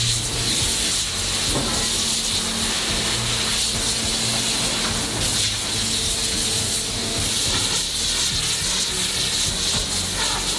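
Steady hissing noise over a low, even machinery hum from heavy forging-plant equipment, with no distinct strikes or pauses.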